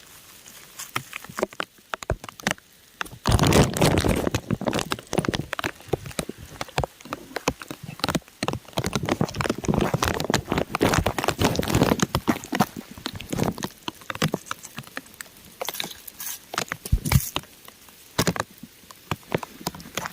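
Raindrops pattering on crumbling rock: irregular sharp ticks, thickening into denser, louder spells about three seconds in and again around ten seconds.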